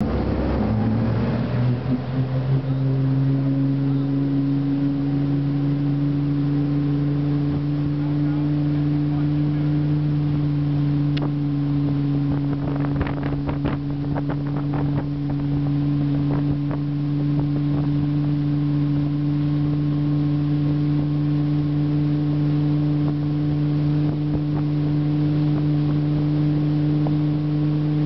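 Tow boat's engine speeding up over the first couple of seconds as it pulls a water skier up, then running steadily at towing speed, with water and wind noise and a few knocks near the middle.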